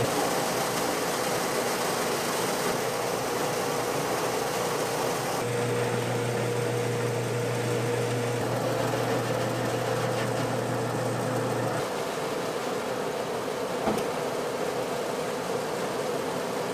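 Electric milling machine running steadily, its motor giving a continuous whirring noise, with a low hum that cuts in about five seconds in and drops out again about twelve seconds in.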